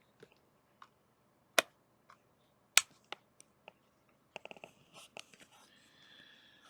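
Irregular sharp clicks and taps, two of them loud, then a quick run of small ticks, with a faint steady whine starting near the end.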